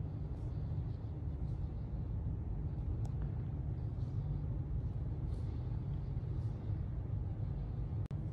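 Steady low rumble of a large room's background noise, with faint soft high sounds about once a second and a brief dropout near the end.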